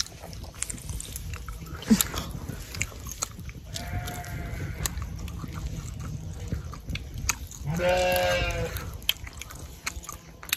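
A farm animal bleating twice, a shorter, fainter call about four seconds in and a longer, louder one about eight seconds in.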